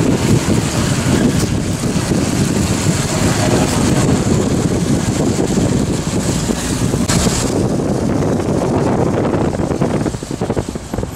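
Moving vehicle's steady engine and road rumble, with wind on the microphone; a high hiss drops away about seven seconds in.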